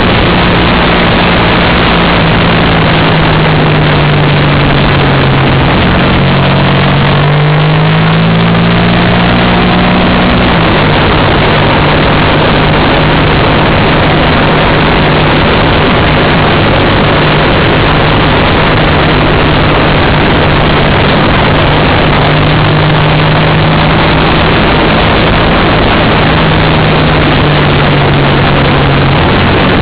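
Racing motorcycle engine at speed heard from an onboard camera, under heavy wind rush. The engine note dips and climbs about a third of the way in, then holds steady.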